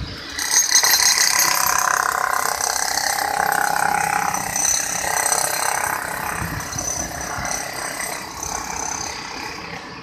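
Construction machinery running with a mechanical clatter and several steady whining tones; it comes up loud about half a second in and eases off over the last few seconds.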